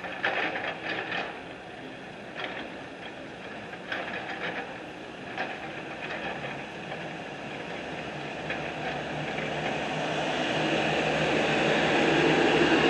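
Outdoor construction-site and street noise: a few scattered knocks early on, then a vehicle's steady noise swelling over several seconds and loudest near the end.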